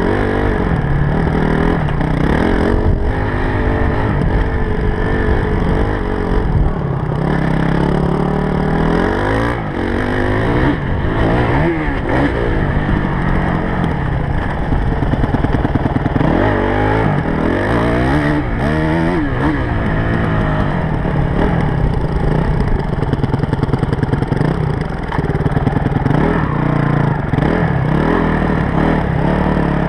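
Honda CRF250X dirt bike's single-cylinder four-stroke engine running under load while riding, the revs climbing and dropping repeatedly as the throttle is worked, heard from a helmet-mounted camera.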